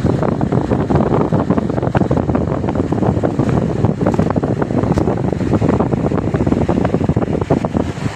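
Wind buffeting the microphone: a loud, steady low rumble full of rapid crackles.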